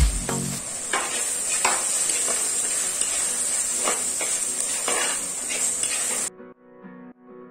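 Chopped onions and tomatoes sizzling in oil in a clay pot while a steel spatula stirs them, scraping against the pot in short strokes every half second or so. The frying sound cuts off abruptly near the end and background music takes over.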